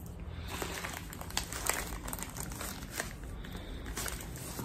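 Parcel packaging crinkling and being torn open by hand, in scattered small crackles.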